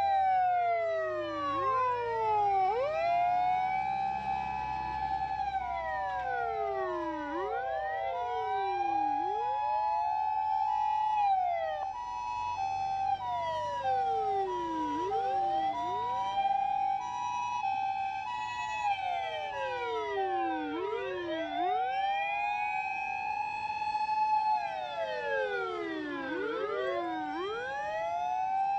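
Several Japanese fire-service emergency vehicle sirens wailing at once, each rising and falling out of step with the others. Through the middle an ambulance's two-tone hi-lo siren alternates steadily, over a low rumble of the vehicles' engines.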